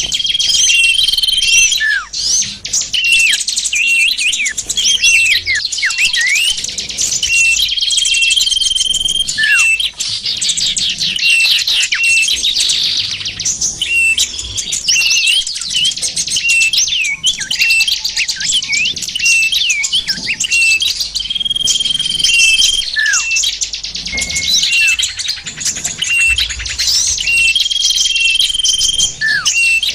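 Bird-lure track of small songbirds calling all together: dense overlapping chirps and fast trills, a held whistle that comes back several times, and short falling whistles. It is a calling sound meant to draw small wild birds in close.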